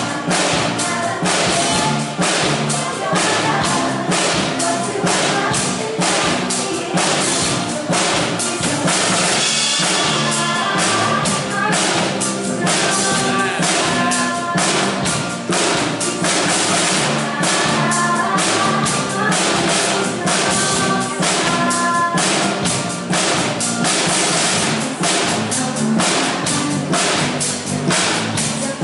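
A band playing a pop song over a steady drum-kit beat, with melodic lines joining about ten seconds in.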